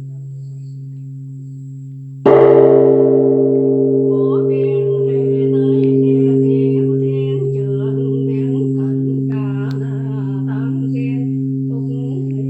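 Buddhist temple bell struck once about two seconds in, over the hum of its earlier stroke, then ringing on and slowly fading, with a voice chanting over the ringing from about four seconds in.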